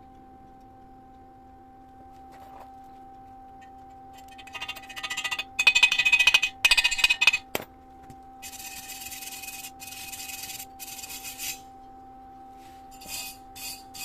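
Work on thin sheet metal in three runs of harsh, scratchy crackling, loudest a few seconds in, then quieter runs and short spurts near the end, over a steady electrical hum.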